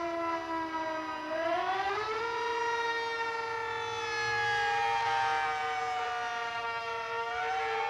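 Century tornado sirens wailing, several tones sounding at once. The pitch sags slowly, climbs back about a second and a half in, sags again and rises once more near the end.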